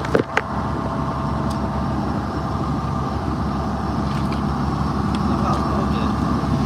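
Fishing boat's diesel engine running steadily, a low even drone with a fast pulse, with a couple of brief knocks just after the start.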